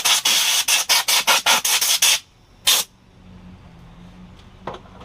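Compressed-air blow gun fired in rapid short blasts, about five a second, then one last short blast, blowing debris out of the disassembled Kohler mower engine.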